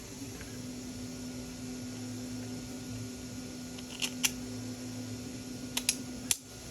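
A steady low hum with a handful of sharp little clicks from small printed parts and screws being handled: two clicks about four seconds in, two more close together near the end, then a last click as the hum cuts off.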